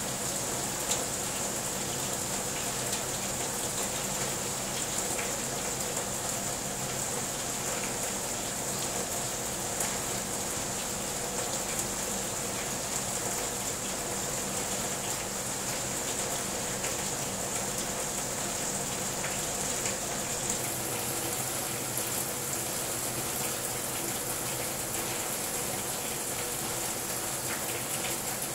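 Heavy rain falling steadily on paving, puddles and tree leaves, an even hiss; about twenty seconds in it turns brighter and thinner.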